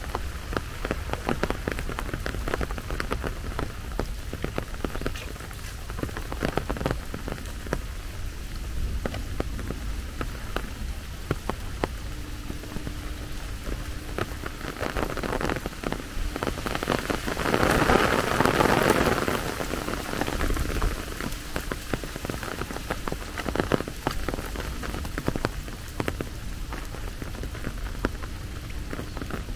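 Steady rain with dense pattering drops hitting a surface close by. About two-thirds of the way through there is a louder rushing swell lasting two or three seconds.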